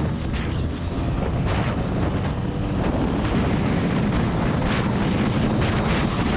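An off-road vehicle's engine running steadily while it drives, with wind buffeting the microphone.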